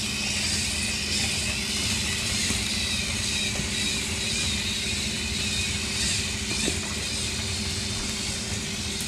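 Small robots' electric drive motors whirring steadily as the robot train drives around, with a faint steady hum underneath.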